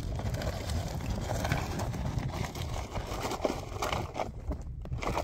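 Wind rumbling on the microphone, with scattered crunches and scrapes of loose stones and gravel as a rope is handled on rocky ground.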